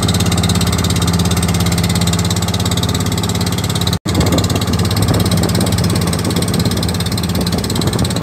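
Inboard engine of a motorized outrigger boat (bangka) running steadily under way, with water and wind rushing past the hull. The sound drops out for an instant about four seconds in.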